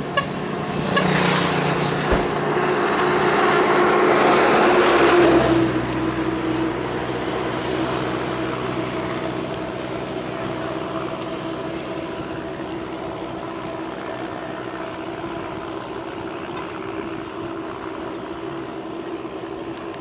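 An engine running steadily. A louder rushing noise swells up about a second in and falls away after about five seconds.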